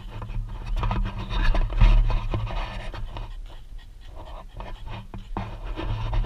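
A bully kutta (Pakistani mastiff) panting hard close to the microphone, with a low rumble underneath.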